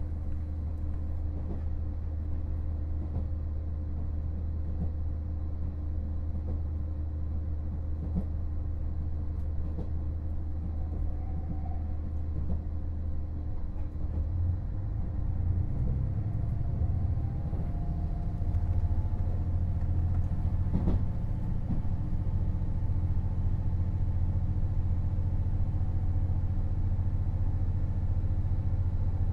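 KiHa 48 diesel railcar running, with a steady low engine drone. Around the middle the engine note rises and gets a little louder as power is applied. There is a single sharp click a few seconds later.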